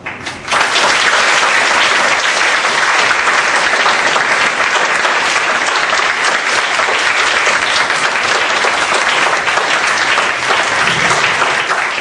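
Audience applause, breaking out about half a second in and going on steadily as dense clapping.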